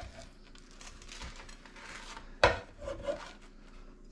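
A steel scraper blade scraping chopped meat across a wooden cutting board, with one sharp knock of the blade on the board about two and a half seconds in and a few lighter taps after it.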